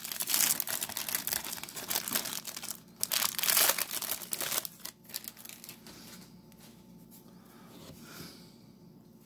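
Plastic wrapper of a baseball card rack pack being torn and crinkled as it is opened, dense crackling for about the first five seconds, then fainter handling.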